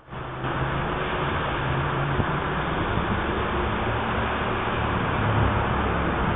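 Steady traffic noise from a busy road: a continuous rush of cars with a low engine hum underneath.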